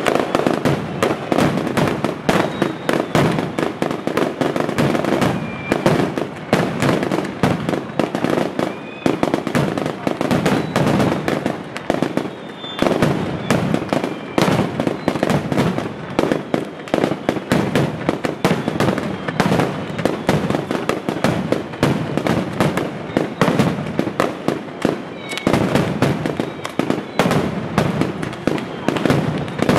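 Mascletà firecrackers going off: strings of firecrackers hung on wires, bursting in a dense, unbroken rattle of sharp bangs.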